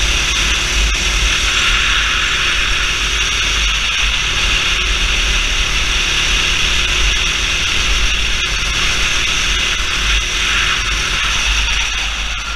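Go-kart engine running steadily at speed as the Sodi kart laps the track, heard onboard under heavy wind rush on the microphone. The level eases slightly near the end.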